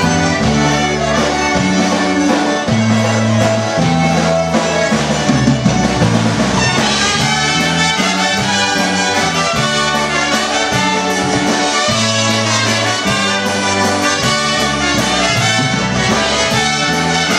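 Live polka band playing a waltz: trumpets carry the melody over concertina, guitar and drums, with a steady three-beat rhythm. The trumpets come in stronger and brighter partway through.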